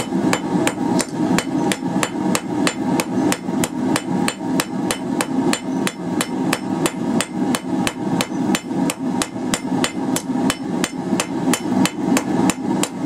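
Hand hammer striking a hot quarter-inch round steel bar on an anvil in a fast, steady rhythm of about three to four blows a second, rounding up a tapered end.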